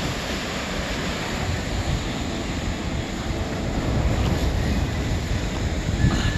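Ocean surf breaking and washing through shoreline boulders: a steady rushing wash with a low rumble, with wind buffeting the microphone.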